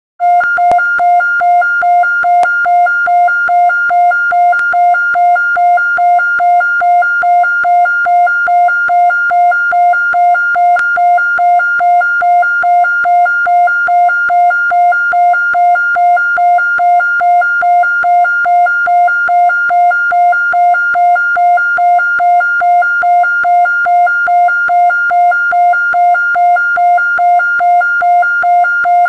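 Siren presented as a restored 1970s Japanese police siren recording: a single steady pitch pulsing on and off evenly, about twice a second, with no rise or fall. A few faint clicks come in the first ten seconds.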